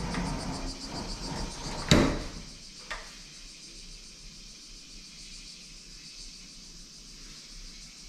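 Low rumbling noise, then a sharp thump about two seconds in, followed a second later by a lighter click. After that only a faint steady hiss remains.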